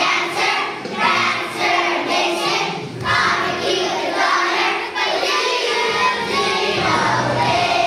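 Young children's choir singing a holiday song together.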